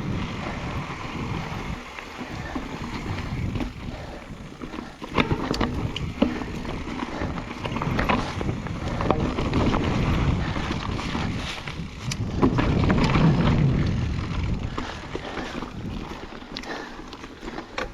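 Mountain bike ridden over a dirt singletrack trail. There is steady tyre and wind noise, broken by sharp knocks and rattles from the bike over rough ground, and the noise swells around the middle and again about two-thirds of the way through.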